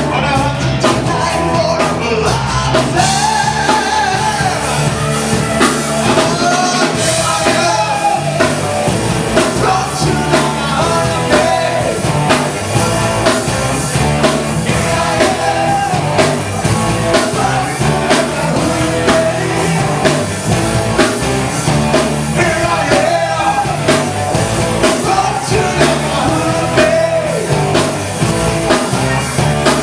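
Rock band playing live, a singer over a steady drum beat and full band.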